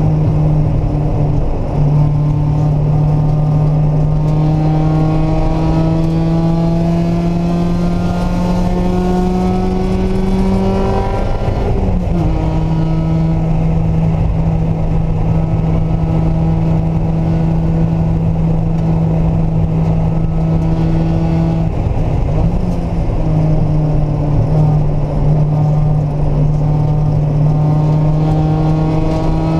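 Mazda Miata's four-cylinder engine running hard on a race track. It climbs slowly in pitch under acceleration, drops sharply about twelve seconds in, holds a steady note, dips briefly again a little past twenty seconds, then climbs once more. Road and wind noise runs underneath.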